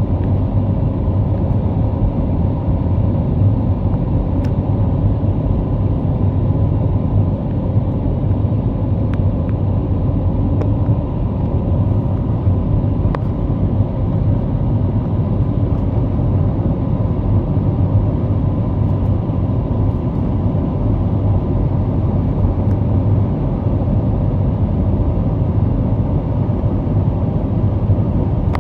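Steady jet engine and airflow noise heard inside an airliner cabin during the climb after takeoff: an even, deep rumble with a faint steady hum on top.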